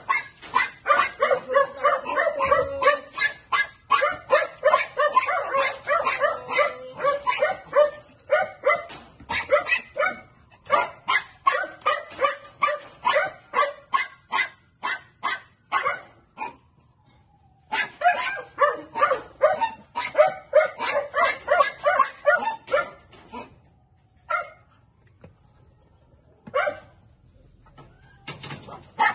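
A small dog barking rapidly and over and over, about three sharp barks a second, with a short pause around the middle and only a few scattered barks near the end.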